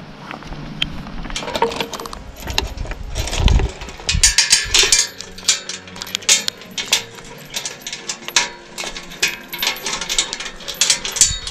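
A metal gate chain clinking and rattling in the hands, in many quick jingles, as it is worked around the post and hooked onto a galvanized steel tube gate.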